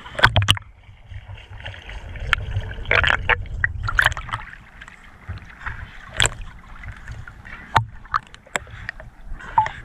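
A dog leaps from a boat into the sea with a loud splash about a quarter of a second in. Seawater then sloshes and slaps against a camera at the waterline as she swims close, with scattered sharp splashes throughout.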